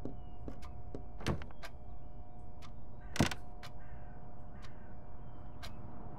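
Pendulum wall clock ticking, light ticks about three a second over a faint steady hum, with one louder swishing thud about three seconds in.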